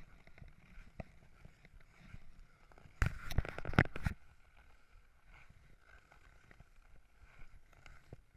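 Ice skates gliding over clear natural lake ice, a low scraping hiss with small clicks, broken about three seconds in by a loud burst of scraping and knocking that lasts about a second.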